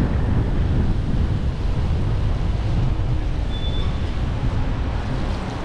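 Wind buffeting the microphone of an action camera riding on an electric scooter: a steady, low rumbling noise. A short high tone sounds once, about three and a half seconds in.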